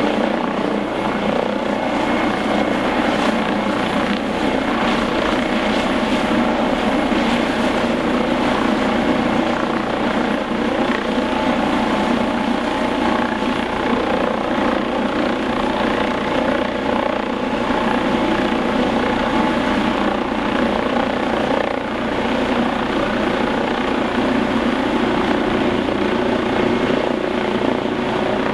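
Eurocopter EC155 twin-turboshaft helicopter running at a steady level: a continuous rotor and turbine noise with a thin, steady high whine in it.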